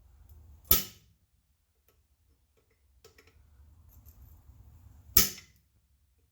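Two hard single hammer blows on metal, about four and a half seconds apart, each ringing briefly, over a faint low hum.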